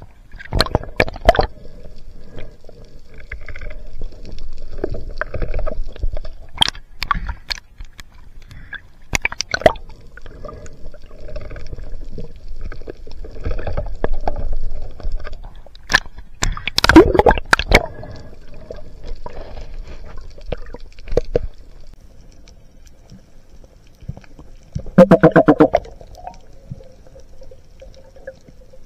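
Muffled water sloshing and gurgling around a waterproof camera on a speargun, at the surface and underwater. Sharp knocks come now and then, and there is a short buzzing sound near the end.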